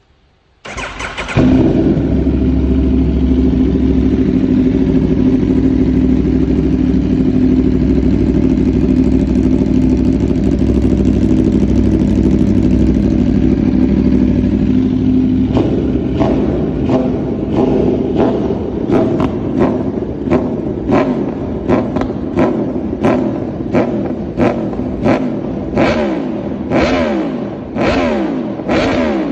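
Aprilia Tuono V4 Factory's V4 engine breathing through a LeoVince LV10 slip-on exhaust: it cranks and fires about a second in, then idles steadily. From about halfway it is revved in a string of quick throttle blips, one or two a second, each rising and falling back.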